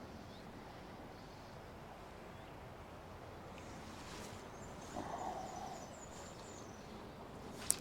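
Steady outdoor background noise, with a short hooting animal call about five seconds in, faint high chirps around it, and a sharp click near the end.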